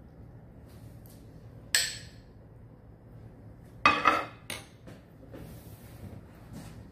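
Dish and cutlery clatter: a serving spoon clinks once against a small ceramic bowl, then about four seconds in the bowl of beans is set down on a dinner plate with a louder knock and a couple of quick follow-up clinks.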